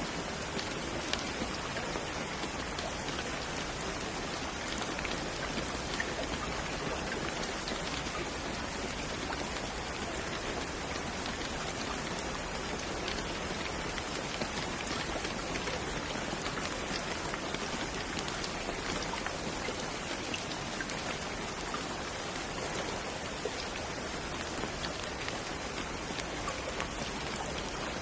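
Steady rain falling: an even, unbroken hiss with scattered single drops ticking through it.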